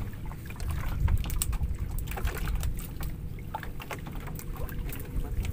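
Outrigger fishing boat at sea: an uneven low rumble of wind and water against the hull, with scattered small clicks and knocks from a net being handled aboard, and a faint steady hum underneath.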